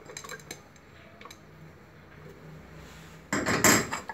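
Dishes being handled: a few light clinks near the start, then about three seconds in a louder, brief scrape and clatter of a ceramic plate on the countertop.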